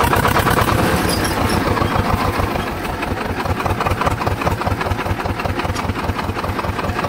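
Swaraj 724 tractor's diesel engine running steadily with an even, regular firing beat, heard from the seat just behind the upright exhaust stack.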